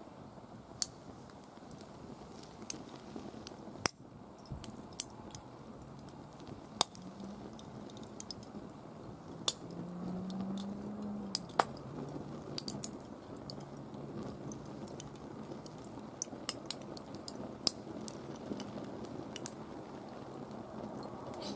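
Fire crackling in a grill, with irregular sharp pops over a steady low rush of burning.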